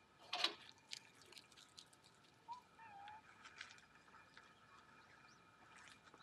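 Quiet outdoor ambience: a soft rustle about half a second in, scattered light clicks, and a faint short call about two and a half seconds in.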